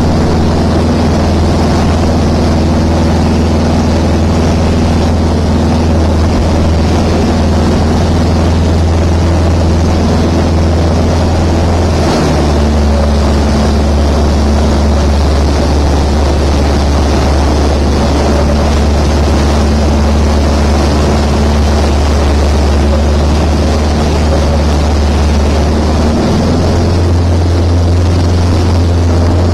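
Light aircraft's piston engine and propeller droning steadily in flight, heard from inside the cabin. The engine note drops a little about twelve seconds in and rises again near the end.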